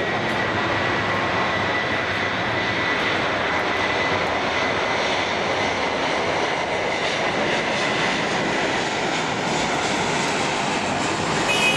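Twin jet engines of an Airbus A330-300 at high thrust for its takeoff roll: a steady loud roar with a high fan whine that fades about halfway through.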